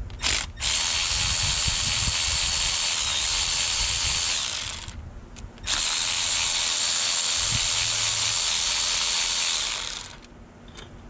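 Handheld power tool running in two long runs of about four seconds each, a short pause between them, with a steady high-pitched whine over a loud hiss.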